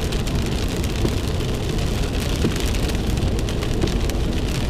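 Heavy rain falling on a moving car, heard from inside the cabin, with a steady low rumble of the car driving on a wet road and fine patter from the drops throughout.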